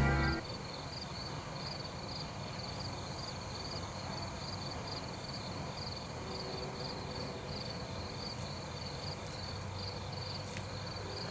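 Crickets chirping in a steady, even rhythm over a faint hiss. A music track cuts off about half a second in.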